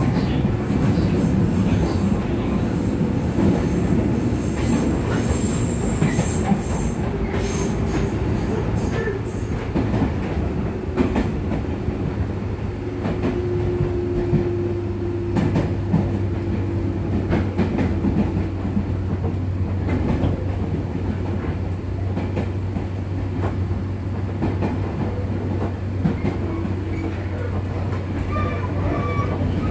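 Running noise inside a 205 series 3100 subseries electric motor car (MoHa 205): a steady rumble with repeated clicks of the wheels over rail joints. A low steady hum grows stronger about halfway through, with a faint higher tone for a few seconds.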